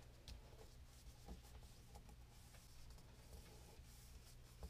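Near silence, with faint rubbing of paper under the hands and a few soft ticks as a glued cardstock panel is pressed flat.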